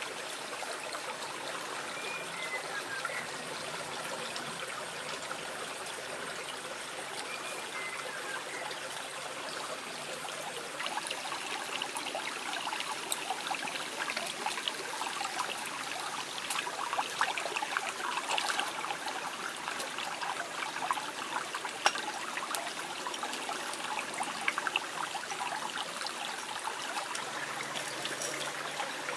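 Steady watery rush of a shallow stream. From about eleven seconds in, dense crackling and sizzling joins it as giant oysters grill in their shells on a wire rack over a fire.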